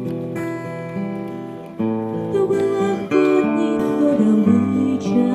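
Acoustic guitar strumming chords in an instrumental passage of a song, the chords changing every second or so.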